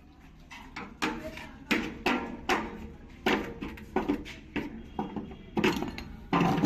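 Repeated sharp metallic knocks, about two a second and unevenly spaced, each ringing briefly, from metal parts being struck during work on a washing machine's drum flange.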